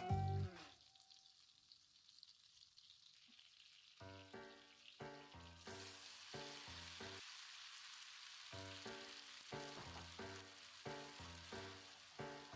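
Food sizzling in a frying pan, starting about halfway in, over soft background music with a steady beat.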